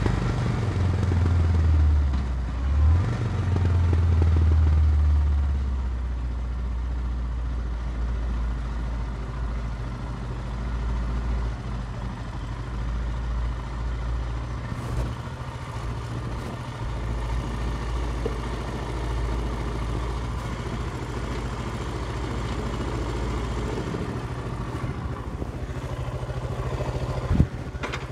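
Motorcycle engine heard from on board: its note shifts over the first few seconds as the bike slows, then runs low and steady as it rolls slowly and idles. A single sharp click near the end.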